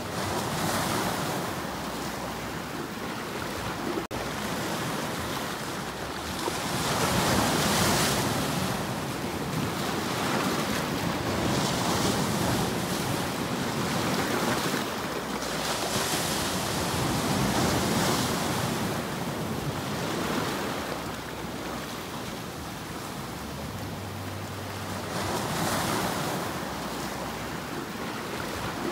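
Sea surf breaking and washing over shoreline rocks, the rush of water swelling and easing every few seconds as each wave comes in.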